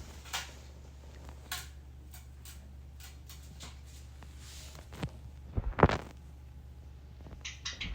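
A Java sparrow being handled: light clicks and rustles over a steady low hum, a sharp loud knock about six seconds in, then the bird starts a rapid, even, high twittering near the end.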